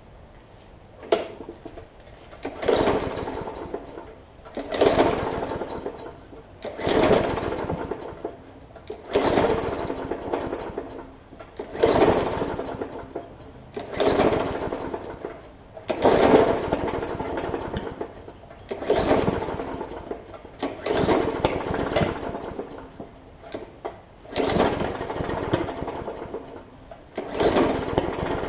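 Briggs & Stratton OHV push-mower engine being pull-started again and again, about a dozen pulls roughly two seconds apart. On each pull the engine briefly fires and sputters, then dies without catching, as it fights water in the fuel.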